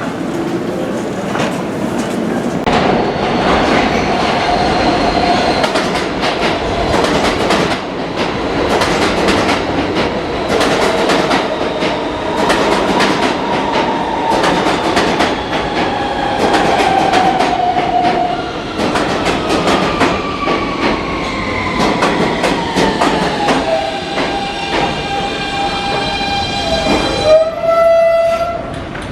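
New York City subway train pulling into the station: the wheels clatter over the rail joints and a whine falls steadily in pitch as the train slows. It ends in a short, loud squeal as it comes to a stop near the end.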